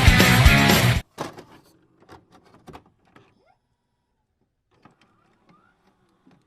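Loud rock-style ringtone music with a heavy beat that cuts off abruptly about a second in. It is followed by a few faint scattered clicks and knocks, then near silence.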